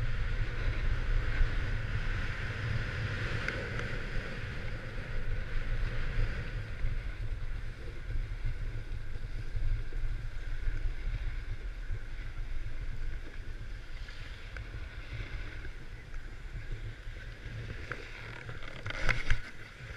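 Wind buffeting a first-person camera's microphone over the scraping hiss of gliding down packed snow, easing off in the last few seconds as the rider slows, with a few sharp clicks near the end.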